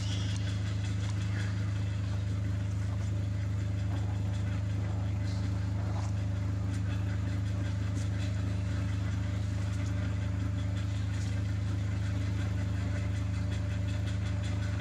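Steady low mechanical hum, like an engine idling, holding the same pitch and level.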